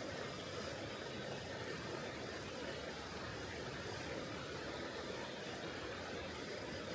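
Mountain river flowing: a steady, even rushing of water with no breaks.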